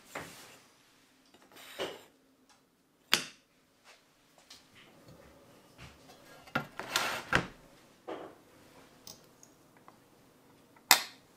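Hands handling mold-making materials on a tabletop (a plastic mold box, cardboard, a glass plate and a needle tool): scattered knocks and clicks as pieces are picked up and set down, with a cluster of handling noise about seven seconds in and a sharp click near the end.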